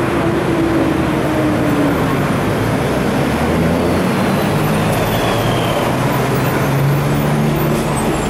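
Street traffic: motor vehicle engines running close by over a steady wash of road noise, one engine note falling in pitch over the first couple of seconds and another rising near the end.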